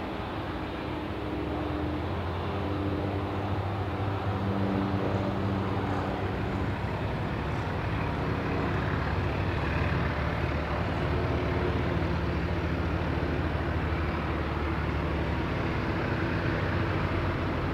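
Boeing 787-9 airliner's Rolls-Royce Trent 1000 turbofan engines running at taxi power as it taxis past: a steady rush with low steady engine tones beneath it, getting slightly louder over the first few seconds.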